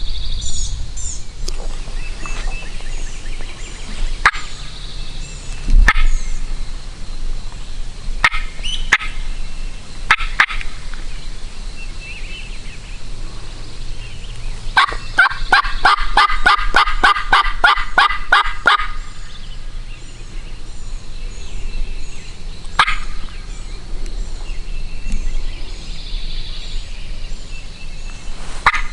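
Hunter's turkey call worked to locate gobblers: a few separate sharp notes, then about halfway through a fast rattling run of notes lasting about four seconds, gobble-like, with songbirds chirping faintly.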